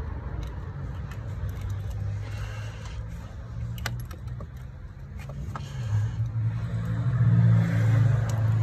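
A vehicle engine hums low and steady, swelling louder over the last few seconds. A few light metallic clicks and clinks come from hand work on the car's starter.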